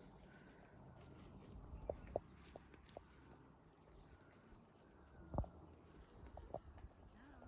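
Faint, steady chirring of insects such as crickets or cicadas, with scattered soft knocks and one louder knock about five and a half seconds in.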